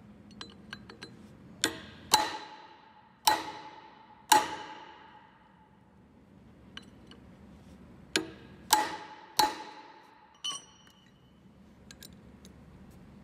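A rusted aluminum four-groove pulley and its tapered steel bushing being struck with a steel wrench: about eight sharp metallic blows in two groups, each ringing briefly. The blows are meant to shock the seized bushing loose from the pulley's taper. A few light clinks come before the first blow.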